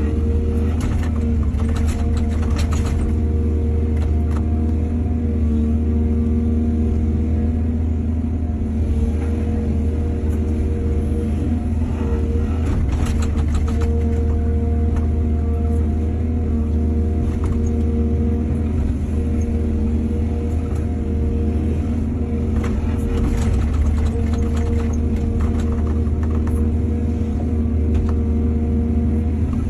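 Excavator's diesel engine running steadily under work, with bursts of clattering about three times, roughly ten seconds apart.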